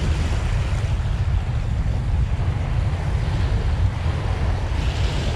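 Wind buffeting the microphone in a steady rumble, over small waves washing up the sand at the water's edge; a wave wash swells near the end.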